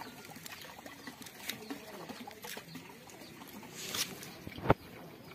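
Fish feeding at the surface of a pond: small scattered patters and slurping splashes, with one sharp, loud smack about four and a half seconds in.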